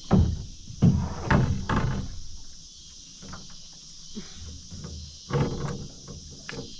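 Several loud knocks and thumps, a cluster in the first two seconds and more around five to six and a half seconds in, as a small channel catfish is landed and handled in an aluminium jon boat. Steady cricket chirring runs behind.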